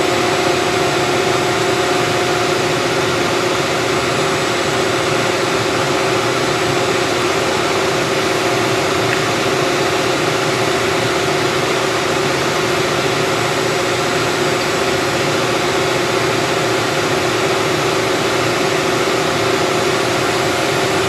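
Steady machine hum with a constant hiss, a few even tones held unchanged over it.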